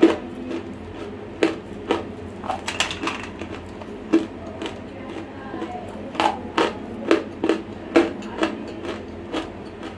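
Close-miked biting and crunching of dry, semi-roasted clay chunks: a string of sharp, irregular crunches, with a short lull near the middle before a quicker run.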